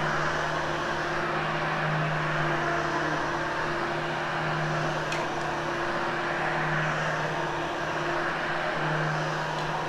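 Vacuum cleaner running steadily over carpet: a constant motor hum over the noise of the airflow.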